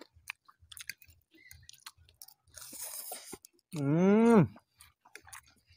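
People chewing and eating spicy noodles, with small wet clicks and crackles of chewing and forks, and a brief hiss about two and a half seconds in. About four seconds in comes a short wordless voiced sound that rises and falls in pitch.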